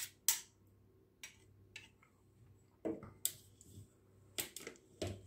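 Metal spoon scraping and tapping against the inside of a plastic blender chopper bowl as milkshake is scooped out: a few short scrapes and clicks with quiet gaps between, a cluster of them near the end.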